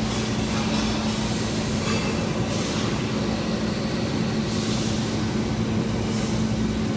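Steady mechanical drone with a constant low hum, broken by a few short hissing bursts.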